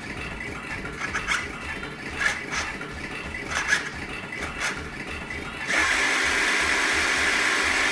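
Small plastic gear mechanism clicking and rattling in irregular bursts, then a louder steady hiss starting about three-quarters of the way through.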